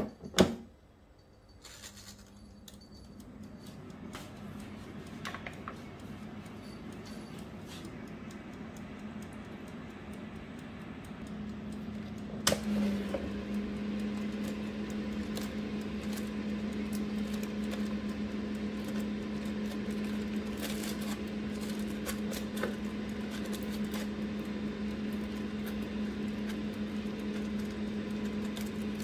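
Tefal air fryer basket knocking shut, then the fryer's fan motor running with a steady low hum that builds over the first few seconds. About twelve seconds in a click is heard and the hum then runs louder, with light clicks and taps over it.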